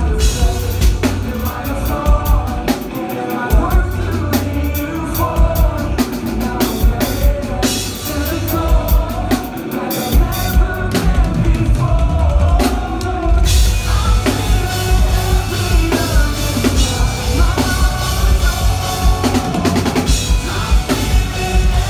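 Live rock band playing, with a drum kit pounding out a steady kick-and-snare beat under the bass and other instruments. About thirteen seconds in the sound fills out in the highs. Recorded on a phone at the show.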